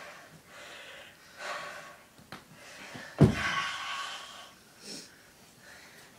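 Heavy, gasping breaths from people wrestling, a puff about every second, with one loud thump about three seconds in.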